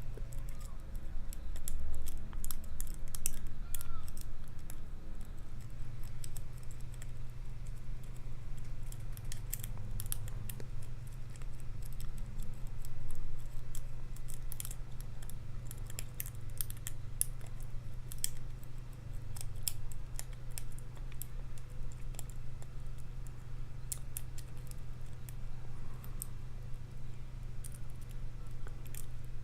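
Lock pick and tension wrench working the pins of a padlock's keyway: irregular light metallic clicks and scrapes as pins are probed and set, over a steady low hum.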